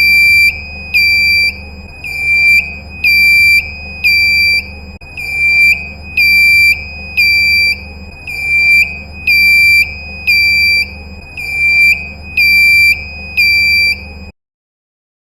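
Ship's alarm sounding: a shrill electronic tone pulsing about twice a second over a low steady hum. It cuts off suddenly about 14 seconds in.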